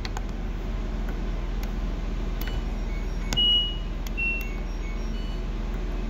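LG front-load washer-dryer's control panel beeping as its buttons are pressed to enter the test mode: a string of short electronic beeps at a few different pitches, with one longer beep about three and a half seconds in, over a steady low hum.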